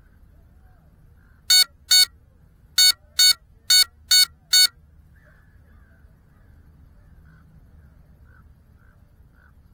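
An FPV quadcopter's buzzer beeping after a crash: seven short, loud, harsh beeps, two and then a run of five, over faint background noise.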